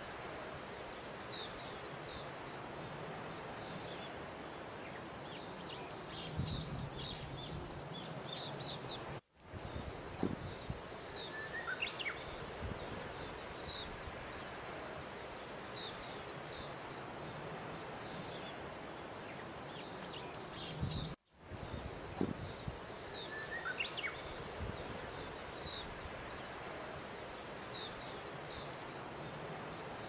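Small birds chirping over a steady outdoor hiss, with a few light knocks. The same stretch of about twelve seconds plays over again, broken twice by a brief dropout.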